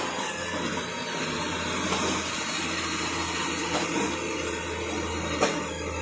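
Roomba 676 robot vacuum running on carpet: a steady whir of its motor and brushes with a low hum. A single sharp knock near the end as its bumper meets an obstacle.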